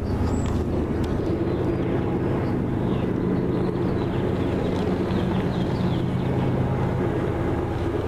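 A steady low engine-like drone with an even hum, with faint short high chirps over it now and then.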